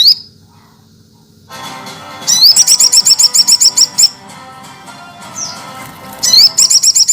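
Sogok ontong sunbird singing: loud bursts of rapid, high, evenly repeated notes, each burst opening with a rising note. One long burst comes about two seconds in and another starts near the end.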